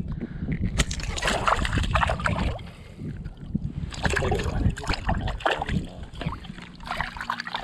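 Shallow water sloshing and splashing close to the microphone, irregular and uneven in loudness.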